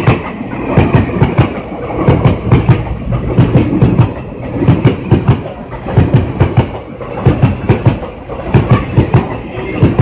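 Indian Railways train wheels clattering over rail joints at speed, in quick groups of clacks about once a second over a steady rumble, as two trains pass each other.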